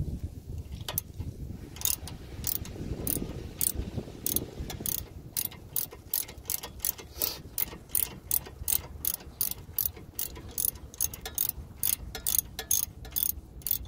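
Hand ratchet clicking as the already-loosened 17 mm nut on the outer tie rod end is turned off with a socket: a steady run of sharp clicks starting about two seconds in, about two to three a second.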